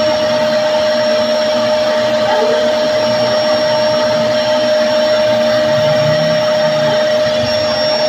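Bagless upright vacuum cleaner running steadily: a constant motor whine held at one pitch over the rush of air.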